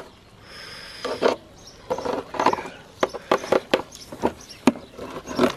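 Metal tongs clicking, tapping and scraping against a disposable aluminium foil tray while a pork shoulder is shifted in it: a run of sharp, irregular clicks and foil crinkles.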